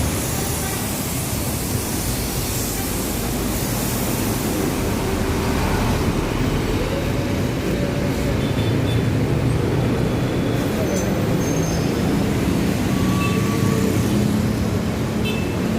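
Road traffic with a city bus running close by: a steady low engine hum over continuous road noise.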